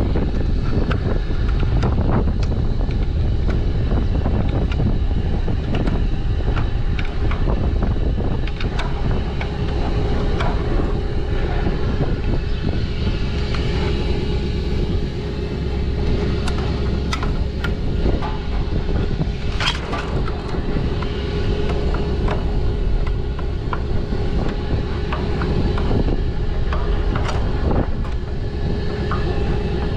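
A well-service rig's engine running steadily with a low hum, with scattered clicks and knocks, one sharper knock about two-thirds of the way through.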